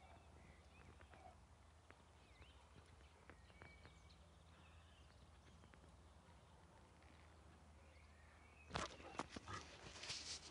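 Near silence with a faint low hum and a few faint ticks. About nine seconds in, a burst of loud scuffing, knocking and rubbing starts as a Leonberger jumps up against the recording phone, its paws and fur brushing the microphone.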